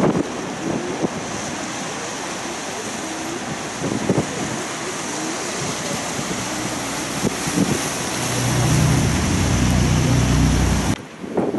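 Wind noise on the microphone over canal water and distant traffic. From about eight seconds a passing boat's engine grows loud with a low, steady hum, then cuts off abruptly near the end.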